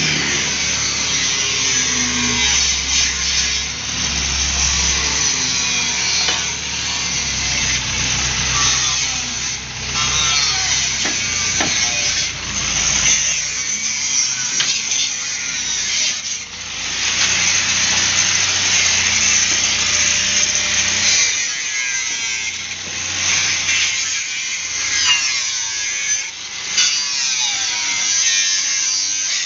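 Power tool cutting steel on an old pickup's body, a continuous hissing cut that dips and picks up again every few seconds.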